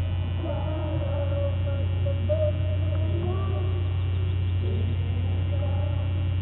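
Steady electrical mains hum on a webcam's audio feed, with faint, indistinct voices underneath.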